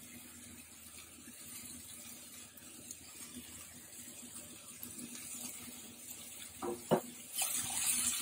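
Green beans sizzling softly in a frying pan as spices are tipped in. Near the end a spatula knocks twice and the beans rustle and scrape as they are stirred.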